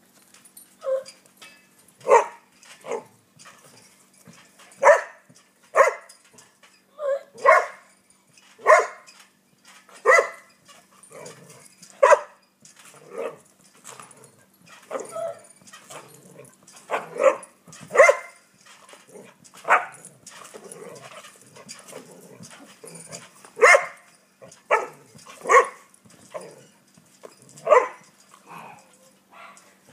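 Dog barking repeatedly, single sharp barks a second or two apart, about twenty in all.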